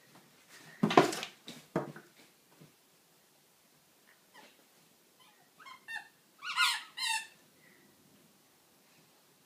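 A squeaky toy being bitten by a Rhodesian Ridgeback. A few scuffling noises come about a second in, then a run of short squeaks a bit past halfway, the last two the loudest.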